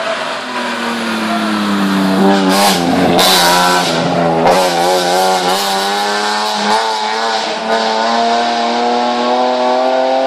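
Hillclimb race car's engine at full throttle as it passes close by. The note dips and wavers, with a few sharp cracks in the first half, then rises steadily as the car accelerates away up the road.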